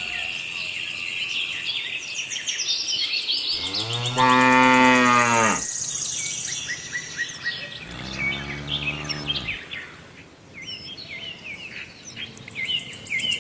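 A cow moos twice: a long, loud call about four seconds in, then a second, quieter call about eight seconds in. Birds chirp steadily in the background.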